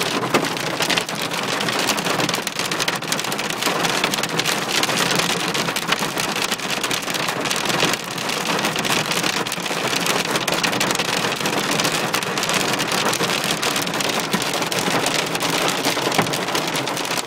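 Heavy hail pelting down, a dense, steady clatter of countless hailstone impacts.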